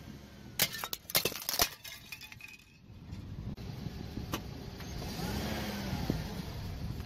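A car tyre crushing a row of crunchy pink drinking glasses: a quick run of about five sharp cracks and snaps over roughly one second, starting about half a second in. The car's engine runs low underneath.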